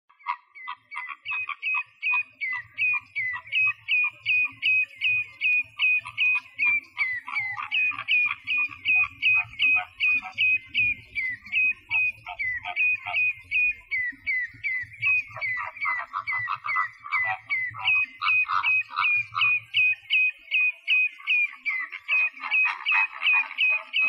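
Common redshank and pied avocet calling: a fast, steady run of short sharp notes, about three a second, with other lower calls mixed in that grow busier from about the middle on.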